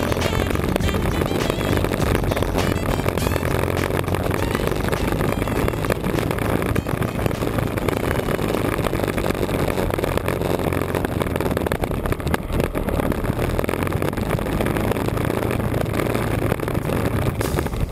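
KTM 950 Adventure's V-twin engine running at a steady cruise with wind and road noise, no revving up or down.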